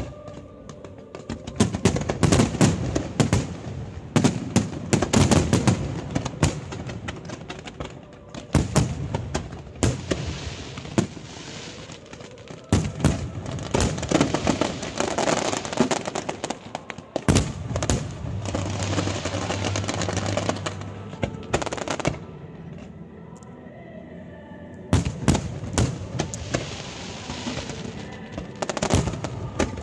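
Fireworks display with shells bursting in rapid sharp bangs and crackling between them. The bangs ease into a quieter lull about three-quarters of the way through, then start again.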